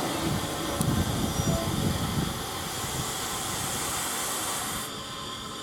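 A train hauled by SR Q Class steam locomotive 30541 rumbling along at low speed, with a steady hiss of steam that cuts off sharply about five seconds in.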